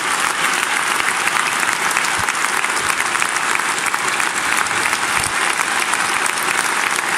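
A large audience in a theatre applauding steadily, dense clapping from many hands.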